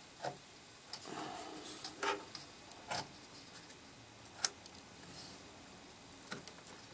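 Faint plastic clicks and taps as a DDR3 RAM module is worked into its motherboard slot, about half a dozen separate ticks with one sharper click about four and a half seconds in, as the module is snapped in place.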